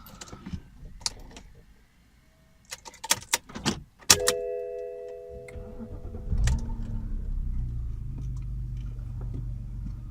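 Keys jangling and clicking. A multi-tone warning chime sounds about four seconds in. The BMW N52 straight-six engine starts about six seconds in and settles into a steady idle.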